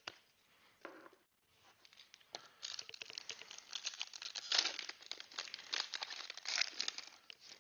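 Foil wrapper of a trading card pack being torn open and crinkled, a dense crackling that grows louder about two and a half seconds in.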